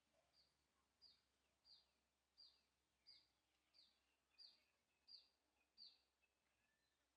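A bird calling faintly: a series of about ten short, high peeps, each sliding downward in pitch, evenly spaced about two-thirds of a second apart and growing a little louder toward the end.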